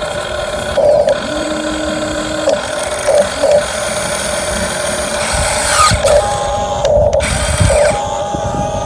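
Small electric gear motors of a Huina 1550 RC model excavator whining, with short louder pulses several times as the motors start and stop.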